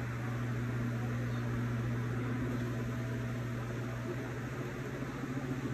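Steady low machine hum with an even hiss.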